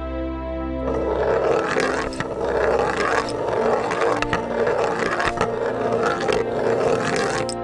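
Wooden chess pieces clattering and scraping against each other in a continuous jumble of small clicks, starting about a second in and stopping just before the end, over a quieter music bed.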